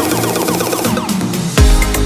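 Electronic dance background music: a bass-less build-up of quick, repeating falling synth notes, then a heavy kick-drum beat drops in near the end.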